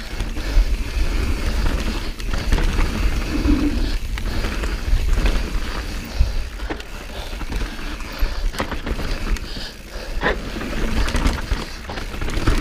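Transition Patrol carbon mountain bike descending a dirt singletrack at speed: steady tyre rumble over the dirt, with scattered knocks and rattles from the bike over bumps and roots.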